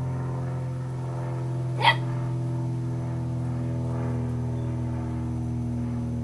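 A German Shorthaired Pointer puppy gives one short, sharp yelp about two seconds in, over a steady droning hum.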